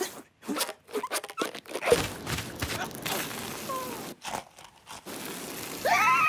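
Cartoon slapstick sound effects: a quick run of sharp clicks and crunches for about two seconds, then a rustling, crinkling noise with a few short pitch glides, and a rising cartoon character's cry near the end.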